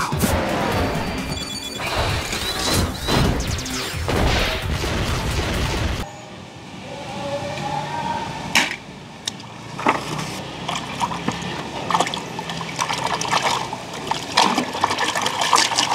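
Music for about six seconds, then an abrupt change to water splashing and swishing as a hand stirs a tub of water, with a few sharp knocks.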